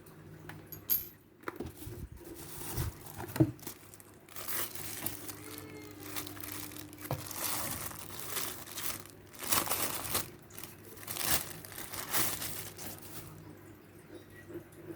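Packaging crinkling and rustling in repeated bursts as it is handled and opened, with a few sharp knocks in the first few seconds.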